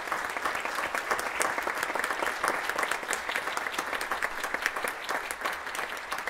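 Congregation applauding, steady clapping from many hands that begins to fade near the end.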